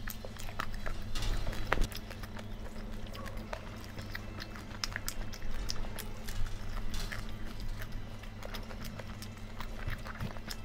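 A person eating by hand: chewing with scattered small clicks and taps, irregular and unhurried, over a steady low hum.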